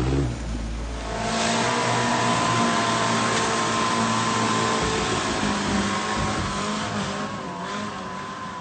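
Off-road extreme-class vehicle's engine revving hard under load as it drives off, holding a loud, steady high note for several seconds and easing near the end.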